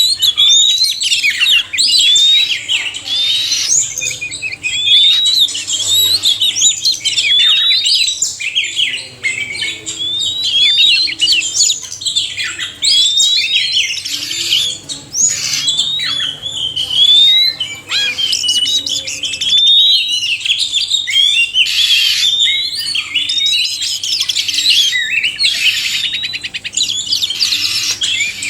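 Oriental magpie-robins, male and female, singing together: a dense, unbroken stream of quick whistles, chirps and trills.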